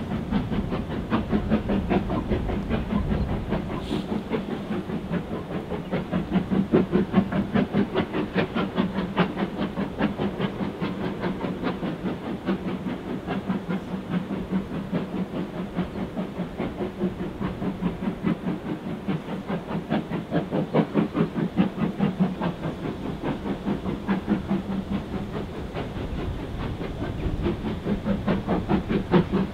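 Steam locomotive working a train, its exhaust beating in a quick, steady rhythm over a constant hiss of steam.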